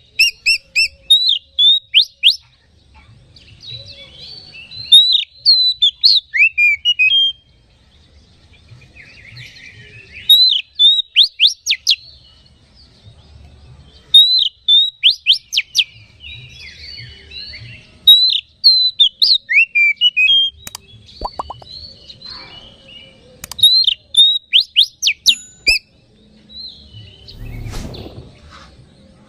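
Oriental magpie-robin singing: fast runs of loud, sharp, down-slurred whistled notes mixed with softer scratchy chattering, in phrases every few seconds with short pauses between them.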